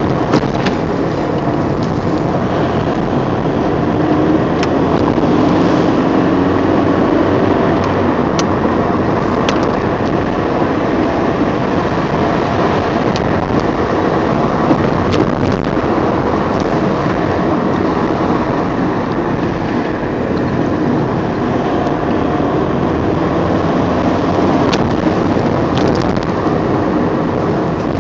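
Vauxhall Vectra driving along at steady speed, heard from inside the cabin: continuous engine and tyre noise, with a few faint light clicks.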